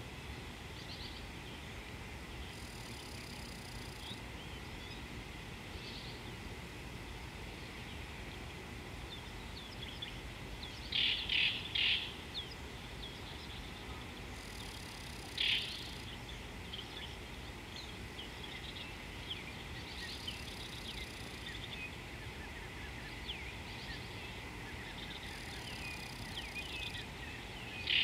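Many small birds chirping and twittering in the bush, with a few louder calls: three in quick succession about eleven seconds in, one more a few seconds later and another at the end. Underneath is a steady low outdoor hiss.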